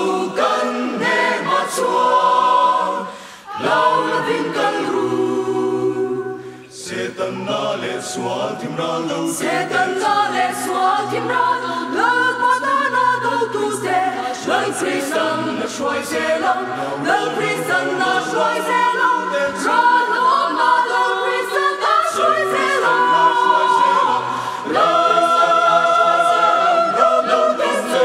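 Mixed choir of women's and men's voices singing together in parts, with two brief dips between phrases about three and a half and six and a half seconds in.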